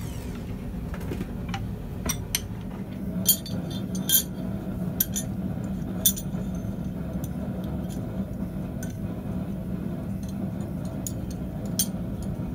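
Forged steel tong halves clinking and tapping against each other and a steel bending-jig block as they are handled and fitted together: scattered light metallic clinks over a steady low hum.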